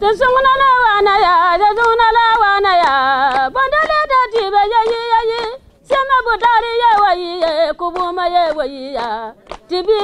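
A woman's voice singing long, wavering held notes, with hands clapping along.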